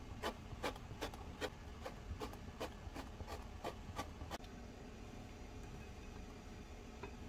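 Kitchen knife scoring an eggplant's skin in a crosshatch, the blade tapping through onto a composite cutting board about two or three times a second. The taps stop a little past the middle.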